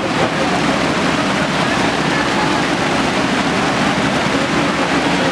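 Muddy flash-flood water rushing steadily, with the diesel engine of a JCB backhoe loader running underneath.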